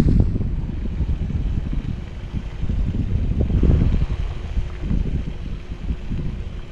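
Wind buffeting the microphone: a gusty low rumble that swells near the start and again a little past the middle, with a faint steady hum underneath.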